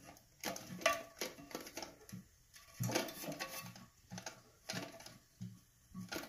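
Irregular light clicks and knocks of plastic fill-valve parts and refill hose being handled against an empty porcelain toilet tank.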